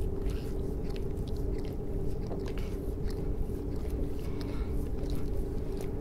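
Close wet clicks and smacks of a dog licking and nibbling at its fur, over a steady low hum.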